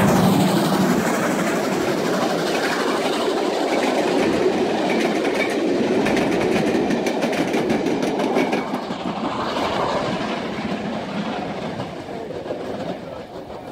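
GWR Manor-class 4-6-0 steam locomotive 7802 Bradley Manor passing close at speed, loudest as it goes by, followed by its train of coaches and wagons rumbling and clattering over the rail joints. The noise fades toward the end as the last wagons pass.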